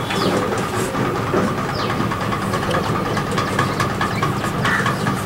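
A steady engine-like drone, even in level throughout, with scattered light ticks over it.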